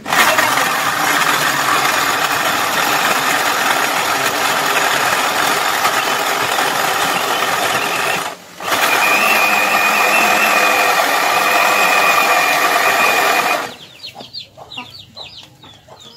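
Electric jug blender running loud and steady as it grinds shallots, garlic, turmeric, ginger and chillies with water into a spice paste; it stops briefly just past halfway, runs again with a steady high whine, and cuts off a couple of seconds before the end. Chickens clucking after the motor stops.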